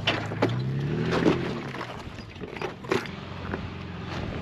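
Off-road vehicle engine running and revving up briefly about a second in, with several sharp knocks and clunks.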